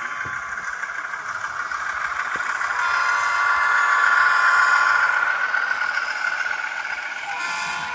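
Sound-equipped HO scale model diesel locomotive playing its diesel engine sound through its small onboard speaker while it runs past. The sound swells to its loudest about halfway through, then fades.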